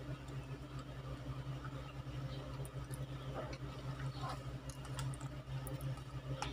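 A steady low hum runs under faint, scattered clicks and rustles of fingers picking rice and rendang out of a takeaway lunch box and eating by hand.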